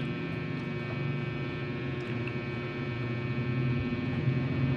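Steady low electrical hum with faint room noise and no other events.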